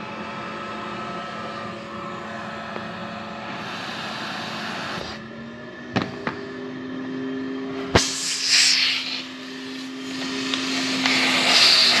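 Commercial floor vacuum running steadily with its hose sealed onto a plastic cola bottle. The motor's tone changes about five seconds in, two sharp knocks come at about six and eight seconds, and then come two loud hissing rushes as the cola and air are sucked through the hose.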